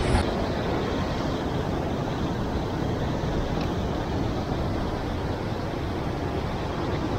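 Steady rush of sea surf washing against the rocks, an even continuous noise without separate splashes.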